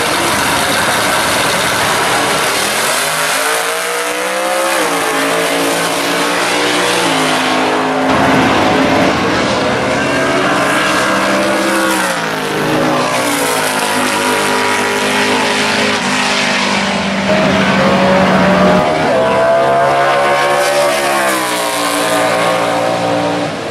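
Drag-racing cars' engines at full throttle, pulling hard through the gears. The pitch climbs and then drops back at each upshift, several times over.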